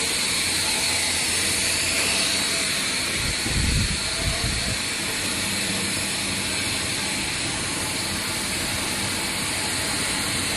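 Cable insulation extrusion line running: a steady machine hiss with a faint hum. A brief low rumble comes about three and a half seconds in.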